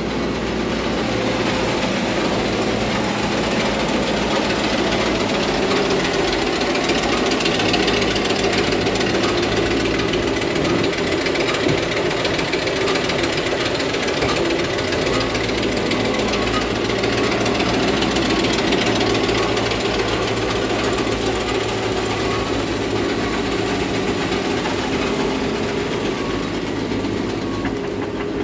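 Three-phase electric grain conveyor running with grain flowing through it into a sack: a steady, dense rattle over a low motor hum.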